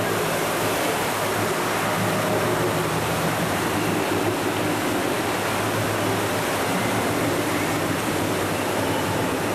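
Steady rush of churning water from a passenger launch's propeller wash in a narrow canal, with a low steady motor hum underneath.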